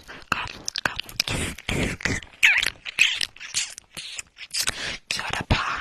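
Close-miked ASMR mouth sounds and whispering: a quick, irregular run of wet clicks and breathy hisses, with some scratching against the microphone.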